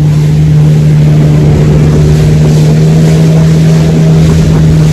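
Jet ski engine running loud and steady at speed, holding one even note, with water rushing and spraying past the hull.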